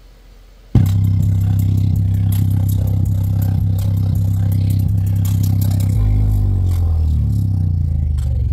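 Sony hi-fi speaker's woofer playing a deep bass track loudly, its cone moving hard, with a rattling buzz over the low notes. The music cuts in suddenly about a second in, and the bass drops to an even lower note with a falling glide around six seconds in.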